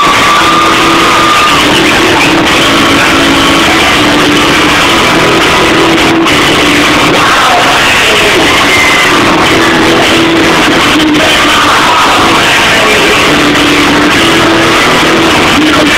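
Two men singing into microphones over a rock backing track played through a PA, the whole mix very loud and flat with no let-up.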